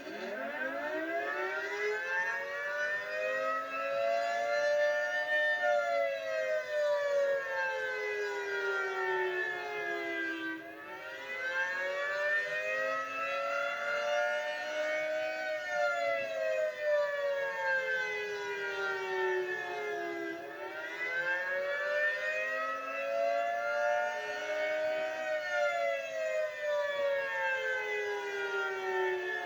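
Federal Signal 3T22 three-tone electromechanical outdoor warning siren sounding a wail: its chord of several tones sweeps slowly up and down about every ten seconds, three times over.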